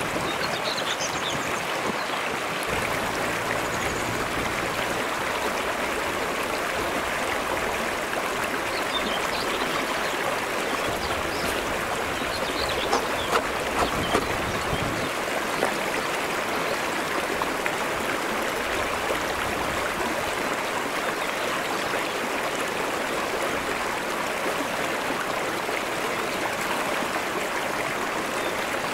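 Shallow stream flowing over flat stone shelves, a steady even rush of water, with a few brief ticks about halfway through.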